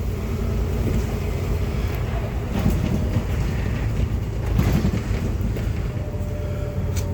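Inside a moving bus: a steady low rumble of the engine and road noise, with a few brief rattles.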